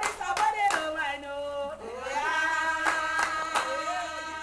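A small group singing together, holding long notes, with hand claps keeping time in two short runs: near the start and again about three seconds in.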